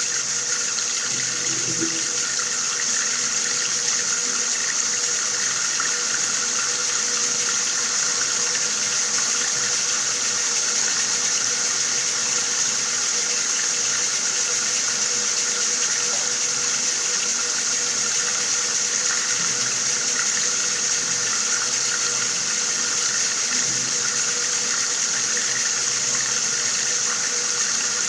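Water running steadily from a tap, a continuous even splashing rush.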